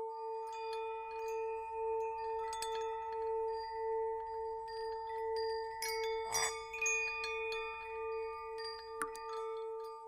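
Ambient soundtrack music: a steady drone tone that pulses evenly, with a second held tone above it and scattered chime-like tinkles and clicks, thickest about six seconds in.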